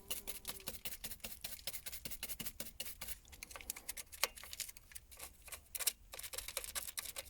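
Rapid, irregular light clicks and scrapes of hand work on a mini excavator's grease nipple, as the long-neglected nipple is cleaned of dirt before greasing.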